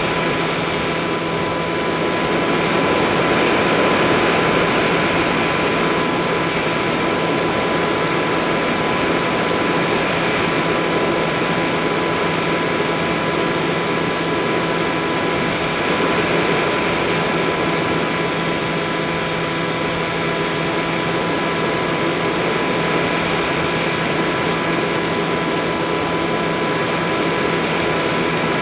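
Multiplex EasyStar RC plane's pusher electric motor and propeller running steadily in flight, heard through the onboard camera's microphone as a constant whine over rushing air.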